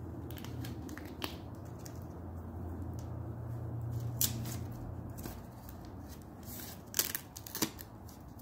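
Hands handling multimeter test leads and a flat lithium pouch battery cell: light rustling and a few sharp clicks, the loudest two near the end as masking tape is peeled off the cell. A low steady hum runs underneath.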